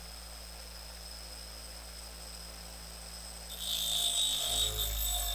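Bench grinder motor running with a steady hum; about three and a half seconds in, a small metal part held in locking pliers is pressed against the grinding wheel, adding a loud, harsh grinding hiss as it throws sparks.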